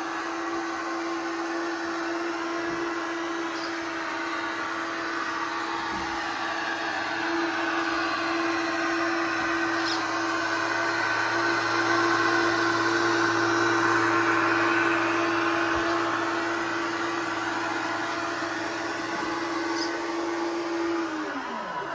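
Tamiya 1/14 scale RC truck running with a steady whine at an even pitch, which winds down sharply near the end.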